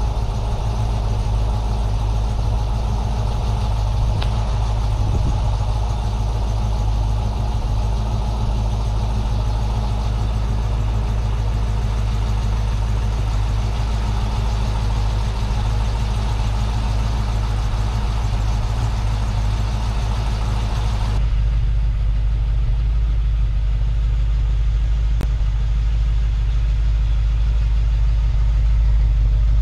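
Mercedes-Benz 280SE 4.5's V8 idling steadily through a new stainless steel exhaust with no exhaust leaks heard, warming up after a month of sitting. About two-thirds of the way through, the sound turns deeper and fuller with less hiss, as heard at the twin tail pipes.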